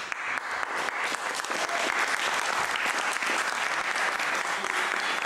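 Audience applauding: dense, steady clapping that starts at once and keeps an even level throughout.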